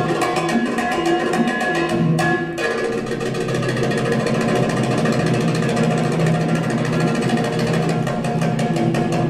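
Belly dance drum solo music: fast darbuka drumming that thickens into a rapid continuous roll about two and a half seconds in, over a few held notes from a melodic instrument.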